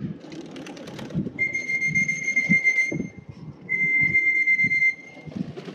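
Two long, steady, high-pitched whistle tones, each lasting about a second and a half, with a short gap between them.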